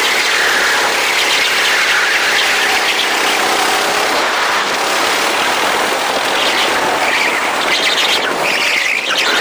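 Go-kart engines running on the track, their pitch rising and falling as the karts speed up and slow down, over a steady rush of noise.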